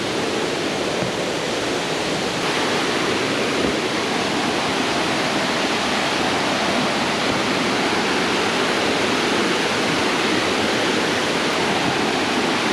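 Steady rush of a creek's cascading water, getting a little louder about two seconds in.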